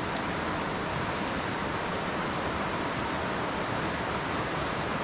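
Flooded creek running high and fast, its water rushing steadily over rocks; it is swollen by a week of rain.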